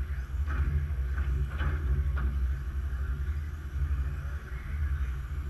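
Electric RC touring cars running around a carpet track, a faint whirring with a few brief streaks of tyre and motor noise in the first two seconds, over a steady low rumble that is the loudest sound.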